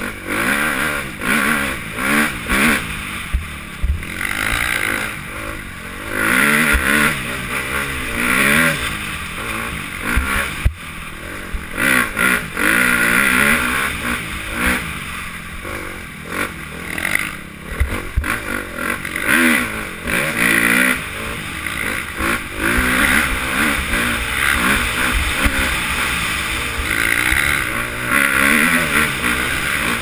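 Dirt bike engine revving up and falling back over and over as the rider works the throttle through the gears, with scattered knocks and rattles from the bike bouncing over rough ground.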